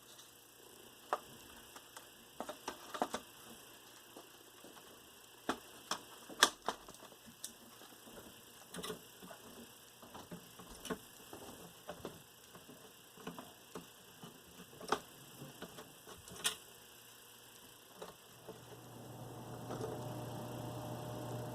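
Toshiba V-M30 Beta VCR: scattered light clicks and clacks from its mechanism. Near the end, a steady motor whir with a hum rises in and keeps running.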